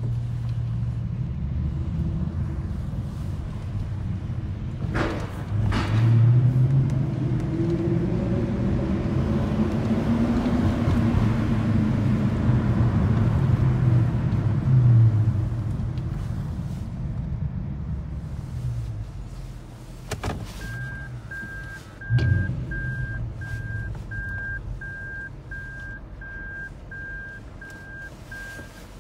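Toyota Celsior's 4.3-litre V8, fitted with a Three Cats aftermarket muffler, heard from inside the cabin as the car drives slowly, its engine note rising and then falling. There is a couple of sharp knocks about five seconds in. About twenty seconds in, the car goes into reverse and the reversing warning beeps steadily, about one and a half beeps a second, with a thump soon after.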